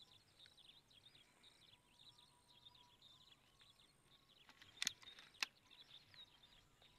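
Faint chorus of many small birds chirping: short, high calls overlapping without a break. Two sharp clicks close together come about five seconds in.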